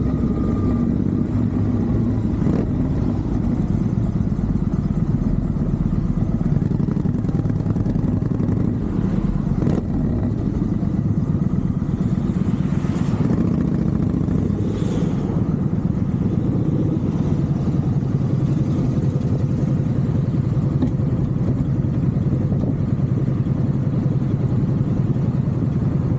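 Motorcycle running through aftermarket Vance & Hines exhaust pipes while being ridden at an easy pace, with a steady, loud exhaust note.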